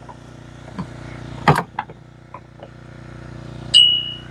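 Several scattered knocks and clicks over a steady low hum, the loudest about a second and a half in. Near the end comes a sharp, short high-pitched squeal.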